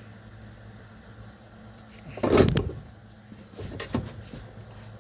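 Dull clunk about two seconds in, then a lighter knock, from smoke-bomb rammer tooling being handled while a clay plug is loaded, over a steady low hum.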